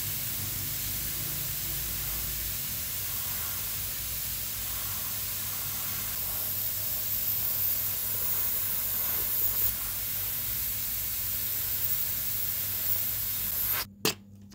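Handheld mini sandblaster hissing steadily as it blasts abrasive at a small model car body part, stripping the paint. Near the end the hiss cuts off suddenly, followed by a single sharp click.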